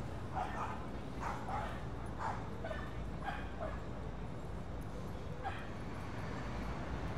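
Dogs barking and yipping: a string of short barks, often in quick pairs, through the first few seconds, then one more bark about five and a half seconds in.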